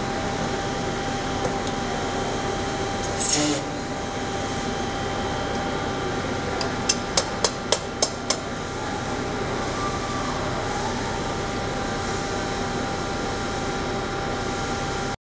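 Steady hum of the die casting machinery with a short hiss about three seconds in. Around seven to eight seconds there is a quick run of six sharp metallic taps as steel tongs knock against and grip the freshly cast aluminium part in the open die.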